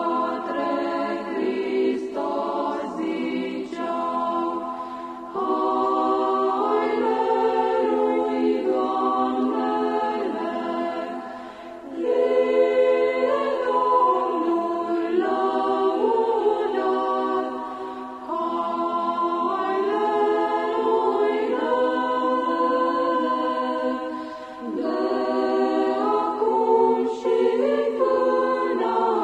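A choir singing a colindă (Romanian Christmas carol), in phrases of about six seconds with short breaks between them.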